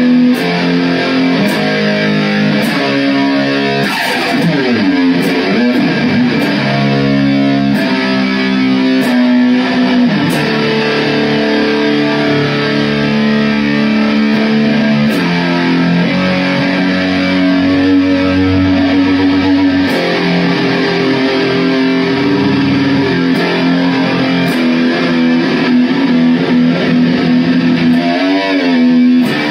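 Electric guitar playing slow metal riffs of held chords that change every second or two, with wavering bent notes about four to six seconds in and again near the end.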